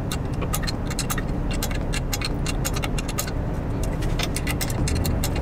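Light, irregular metallic clicks and ticks of hand tools and exhaust-bolt hardware being handled, over a steady low rumble.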